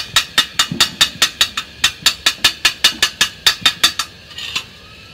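Rapid, even clicking from the blade-clamp mechanism of a Krisbow jigsaw being worked by hand, about five sharp clicks a second, stopping about four seconds in.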